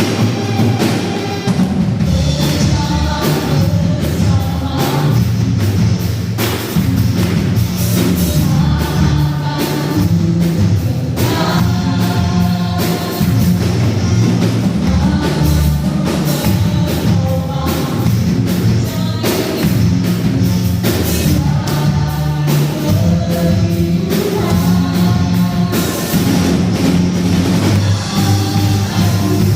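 Live worship band playing a praise song, with drum kit and bass, and voices singing over it.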